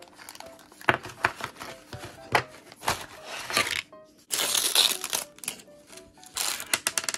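Light background music over plastic clicks, rattles and crinkling as a Miniverse toy capsule and its small plastic bags and parts are handled and opened, with a longer burst of crinkling about four seconds in.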